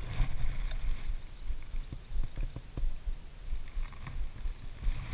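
Wind rumbling on an action-camera microphone, a low irregular buffeting, with a few faint clicks about two to three seconds in.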